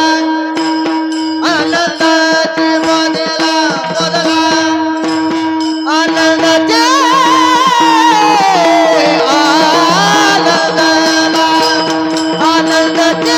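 Marathi kirtan bhajan: a steady drone note and hand-drum strokes, then about halfway in a male singer holds a long, high, wavering ornamented note.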